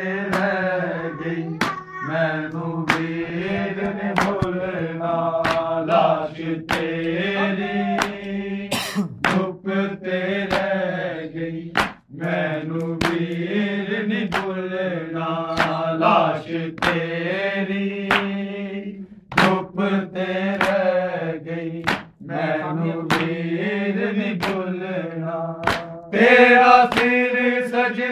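Unaccompanied male voices chanting a Punjabi noha, a Shia lament, with sharp slaps every half second to a second from matam, hands beating on chests in time. Near the end the chanting gets louder and higher.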